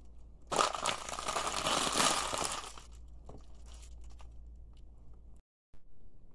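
A sneaker stomping on a sealed bag of chips: the plastic packet crinkles loudly and the chips inside crunch for about two seconds as it is flattened, followed by a few fainter crackles.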